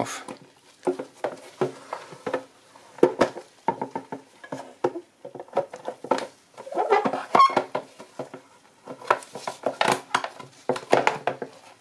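Clear plastic instrument-cluster cover handled by gloved hands while a plastic piece is pulled off it: irregular plastic clicks, taps and crinkling, busiest about midway and again near the end.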